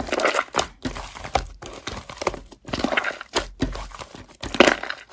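Slime being squished and pressed by hand, with irregular crackling and popping.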